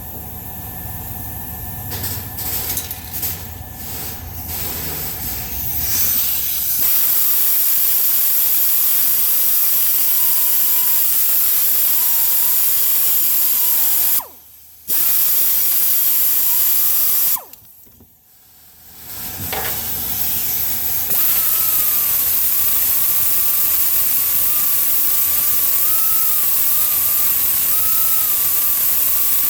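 Tool clicks and knocks at the stud, then a gas torch hissing steadily as it heats the seized exhaust stud in the cylinder head, with a faint wavering whistle. It stops briefly twice and starts again.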